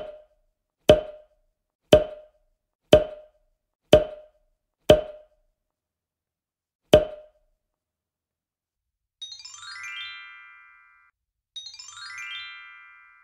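Edited-in sound effects. Short hollow wood-block-like pops come about a second apart six times, then once more after a two-second pause. Near the end come two sparkling chime flourishes, each a glittering run that settles into a ringing chord and dies away.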